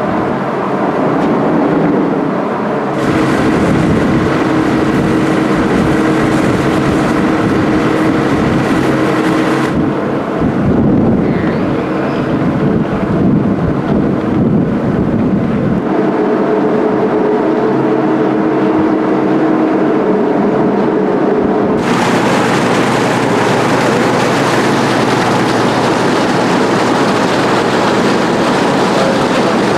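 Steady on-deck noise of a ship under way: a rumbling hiss with faint steady machinery hums. It changes abruptly several times where the recording is cut.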